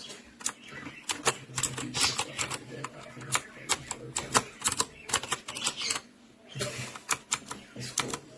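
Typing on a Royal Kludge RK61 60% mechanical keyboard: quick, irregular key clicks, with a short pause about six seconds in.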